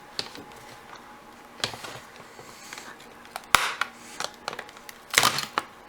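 Small clicks and scrapes of a tablet's plastic and circuit-board parts being handled and pried during disassembly, with one sharp click about three and a half seconds in.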